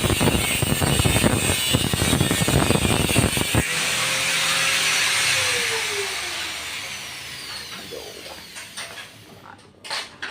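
A power tool cutting with a rough, rapid grating that stops suddenly about three and a half seconds in. Its motor then winds down with a falling whine, followed by a few faint clicks and knocks.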